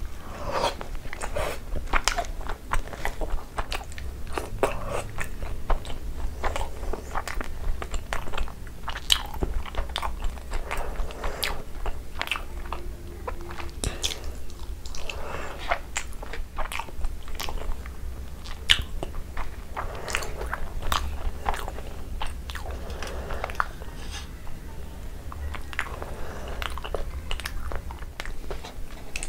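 Close-miked chewing of a mouthful of Indian sweets, with a dense, irregular run of sharp mouth clicks and smacks, several a second.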